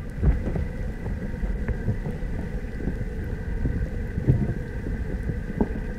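Wind rumbling on the microphone, with irregular knocks and rustles of handling. A faint steady high tone runs underneath.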